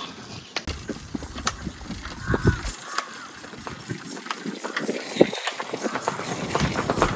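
Hoofbeats of a ridden horse on a concrete lane, a run of sharp clip-clops that come thicker and a little louder in the second half as the horse comes on.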